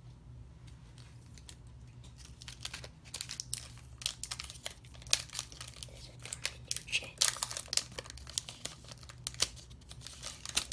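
Pokémon Sword and Shield booster pack's foil wrapper being crinkled and torn open: a run of irregular sharp crackles that starts about two seconds in and comes in clusters.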